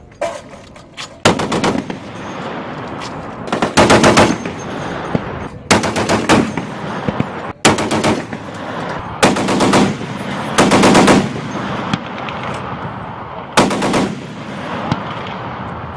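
M2 .50-calibre heavy machine gun firing about eight short bursts, each a rapid string of heavy shots, with the reports echoing on between bursts.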